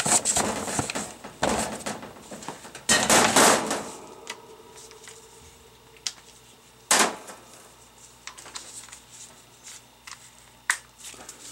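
An aluminium Hydro-Gear hydraulic pump being turned over and set down on newspaper by gloved hands: paper rustling and metal knocks during the first four seconds. Then one sharp click about seven seconds in, and a few faint clicks near the end.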